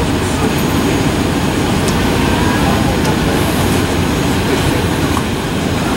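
Steady low rumble inside the cabin of an Embraer 190 moving on the ground, its two GE CF34-10E6 turbofan engines running at idle.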